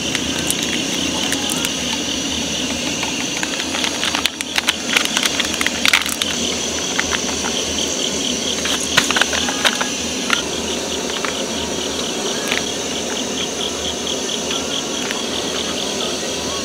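Coffee sachets being torn open and crinkled, and packets knocking against stainless steel camping mugs, in a cluster of sharp clicks and crackles about four to six seconds in and again around nine to ten seconds, over a steady background hiss.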